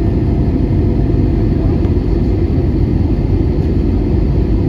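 Airbus A320 in flight on approach to land, heard inside the cabin: a steady, low rumble of the jet engines and the air rushing past the fuselage.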